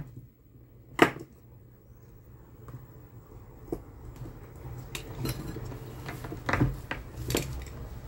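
Metal tools and small parts being handled on a workbench: a sharp clink about a second in, then a few lighter knocks and clicks.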